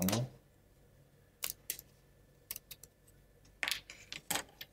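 Small laser-cut plywood model parts clicking and tapping as they are handled: pressed out of their board and set down on a cutting mat. There is a louder knock right at the start, then scattered sharp clicks, with a quick run of them near the end.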